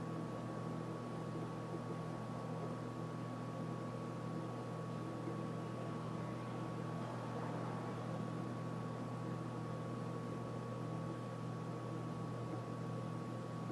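Steady background hum and hiss with a faint constant high tone, and no distinct handling sounds: room tone.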